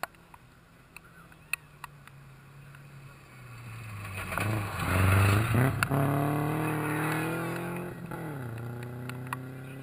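Rally car engine approaching on a gravel stage, passing close by and loudest about five seconds in, then pulling away. The engine's pitch drops sharply about eight seconds in, and it keeps running steadily as it moves off.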